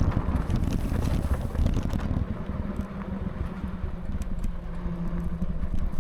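Electric bike ridden over a rough dirt trail: an uneven low rumble with scattered rattles and knocks. A faint steady hum joins in about two seconds in.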